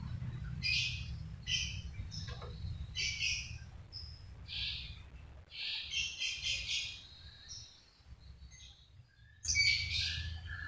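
Long-tailed shrike (cendet) singing a string of short, chattering phrases, a varied run of its song full of mimicked calls. There is a short lull late on, followed by the loudest phrase.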